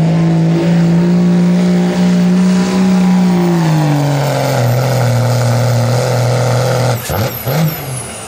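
Diesel pickup truck engine running flat out while pulling the sled; its pitch sags to a lower, steady note about four seconds in as the load pulls the revs down. About seven seconds in the throttle is cut and a high turbo whistle winds down.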